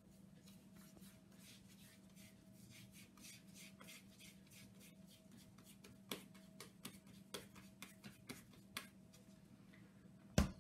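Floured hands rolling and patting a ball of yeast dough between the palms: soft, repeated rubbing with a few light taps, and one louder knock near the end. A faint steady hum runs underneath.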